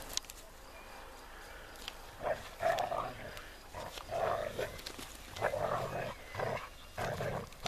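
Standard poodles play-fighting, growling in a run of short, rough growls that start about two seconds in and repeat irregularly.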